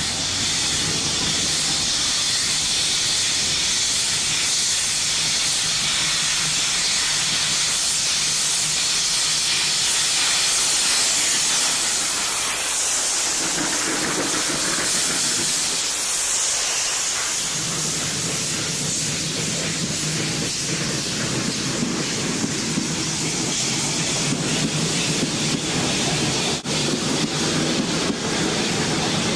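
Steam locomotive passing close with a loud, steady hiss of steam blowing from around its cylinders and wheels. Its passenger coaches then roll past, with wheels clacking over the rail joints near the end.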